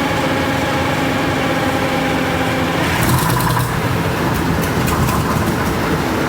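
Freshly rebuilt Detroit Diesel 6-71 inline-six two-stroke diesel running steadily on its first start after an out-of-frame overhaul. About three seconds in, its note changes briefly and some clicking is heard over it.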